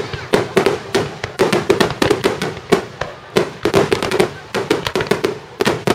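Fireworks finale barrage: shells bursting in rapid succession, with sharp bangs several times a second and crackling between them.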